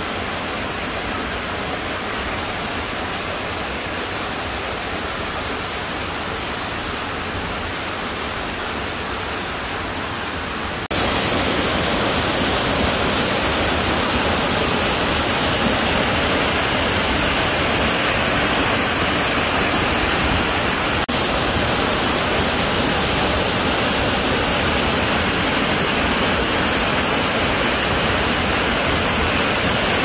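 Waterfall: a steady rush of water pouring onto rock, which jumps louder and hissier about eleven seconds in, where it is heard close to the falling water.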